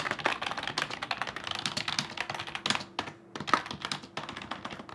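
Fast typing on a computer keyboard, a dense run of key clicks with a brief pause about three seconds in.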